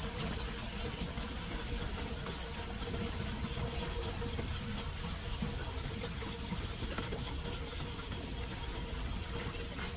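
Rainwater running steadily down through a street storm-drain grate.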